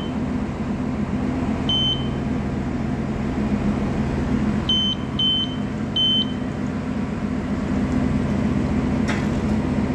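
Riken Keiki GX-8000 gas detector's buzzer giving short high beeps while it runs its air calibration: one near the start, one about two seconds in, and three close together around five to six seconds in. Under them runs a steady low mechanical hum, with a click near the end.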